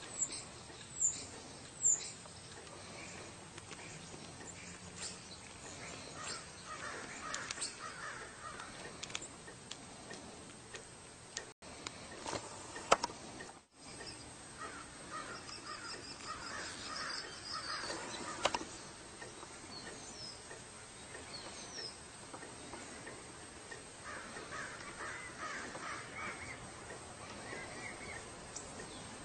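Three bouts of short, repeated animal calls, each a few seconds long, with a few high bird chirps between them. Occasional sharp clicks come near the start and in the middle.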